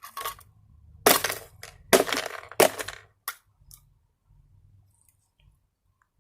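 A coffee maker being smashed: three hard blows, roughly a second apart, each with a crack of breaking casing, then a lighter knock, after which it goes quiet.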